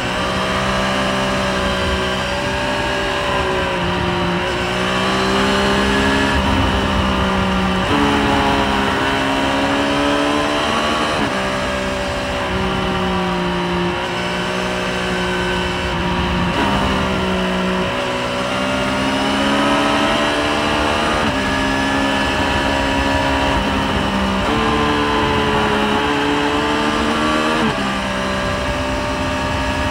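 Triumph Street Triple 765RS's inline three-cylinder engine running at road speed, its pitch rising and falling every few seconds as the throttle is opened and closed through the bends.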